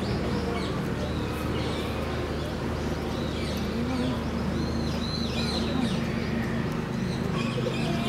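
Construction machine engine running at a steady hum, with small birds chirping several times over it, most in the middle.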